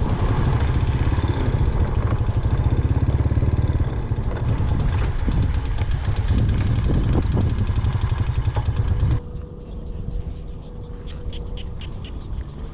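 An engine running steadily with a fast, even pulse for about nine seconds, then cutting off abruptly. What follows is quieter outdoor sound: a steady high tone and short, repeated animal calls.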